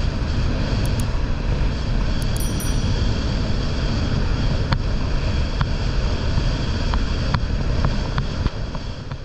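Outboard motor of a rigid inflatable boat running steadily underway, with wind rumbling on the microphone.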